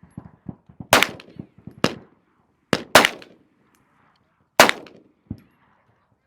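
Slow, deliberate fire from a 9mm Glock 19 pistol fitted with a Radiant Ramjet compensator: four loud shots spaced roughly one and a half to two seconds apart, with fainter reports in between.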